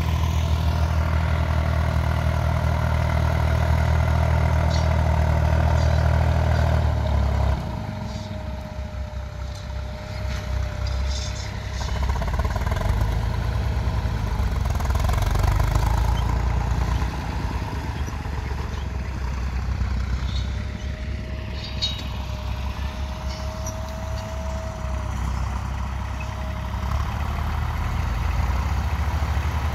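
IMT 539 tractor's three-cylinder diesel engine running under load while pulling a corn seed drill, loud for the first seven seconds, then dropping and swelling again as the tractor works across the field. A thin steady whine comes and goes over the middle stretch.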